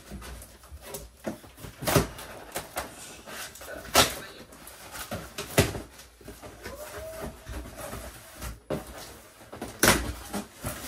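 A large cardboard shipping box being opened by hand: flaps pulled up and folded back, the cardboard rustling and crackling, with several sharp cracks and knocks, the loudest about two and four seconds in and near the end.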